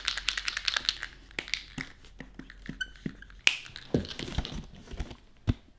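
A small hand-held object is handled, making rapid clicks and rattles, densest in the first second and a half. There is a brief high squeak near the middle and a sharp knock soon after, the loudest sound.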